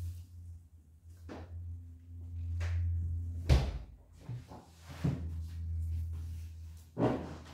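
A door shutting with a loud thud about three and a half seconds in, among a few lighter knocks, over a steady low hum.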